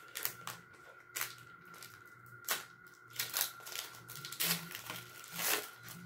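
Foil trading-card pack wrapper being torn open and crinkled by gloved hands: a scattered series of sharp crackles, roughly one a second.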